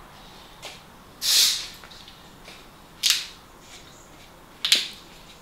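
Drinking fizzy water from a plastic bottle: three short, breathy hissing sounds about a second and a half apart, with quiet between them.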